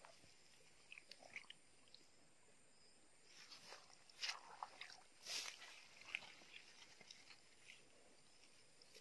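Near silence, broken by scattered faint short clicks and smacks, a few close together around four to five seconds in, the loudest about five seconds in.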